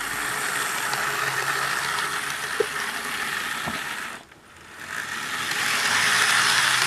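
Athearn Blue Box HO-scale F7 model diesel locomotive running along the track, its motor and gears making a steady whir with the wheels rolling on the rails. The sound dips away briefly just after four seconds in, then comes back louder. It is running smoothly, a sign that the old locomotive is in good working order.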